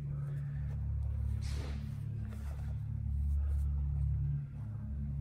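Steady low hum filling a large indoor hall, with a brief rustling scuff about a second and a half in.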